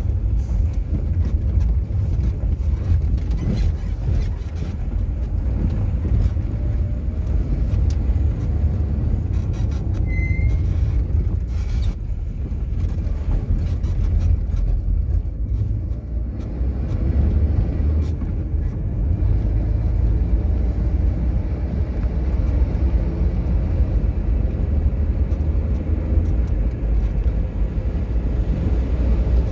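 Steady low rumble of a car in motion, road and engine noise heard from inside the car, with scattered small clicks and knocks.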